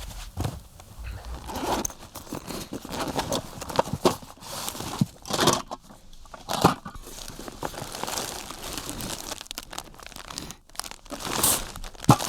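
Irregular rustling, crinkling and crunching from gear being handled and unpacked, with several sharp clicks and knocks, typical of a folding camping chair being pulled from its nylon bag and assembled.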